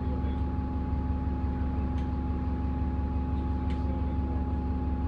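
Diesel engine of an Alexander Dennis Enviro400 Dennis Trident double-decker bus running steadily: a low drone with a thin, steady turbo whine over it and a few faint rattles.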